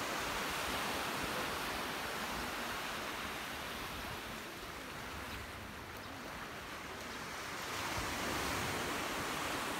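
Small sea waves breaking and washing up on a sandy, rocky beach, a steady rush of surf that eases off around the middle and swells again near the end.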